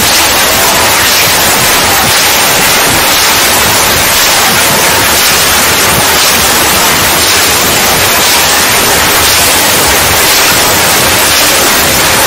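Loud, steady static hiss like white noise, level throughout with no breaks or rhythm.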